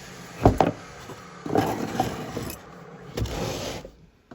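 Handling noises at a knife-sharpening bench: two sharp knocks about half a second in, scraping and rubbing, and another knock a little past three seconds. A faint steady hiss underneath dies away near the end.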